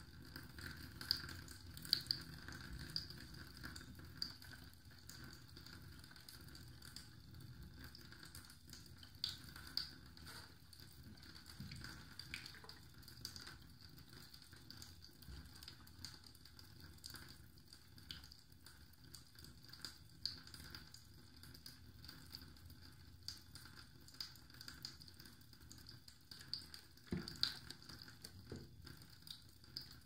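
Faint fizzing and crackling of water and small bubbles in a sink plug hole, with many scattered soft pops and clicks over a steady hiss.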